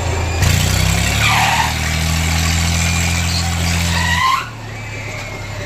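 Low, steady machine drone from fairground ride machinery, over a general hiss of fair noise. The drone cuts off about four seconds in.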